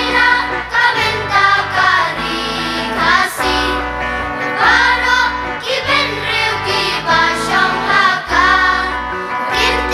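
Voices singing a song over instrumental accompaniment with a steady bass line.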